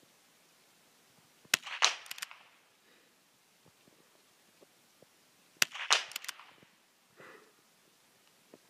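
Two biathlon .22 rimfire rifle shots about four seconds apart. Each is a single sharp crack followed by a quick burst of clicks and clatter.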